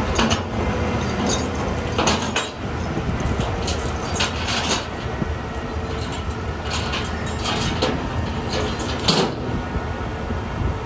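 Heavy military vehicles running at idle, a steady low rumble, with repeated short metallic clanks and rattles every couple of seconds.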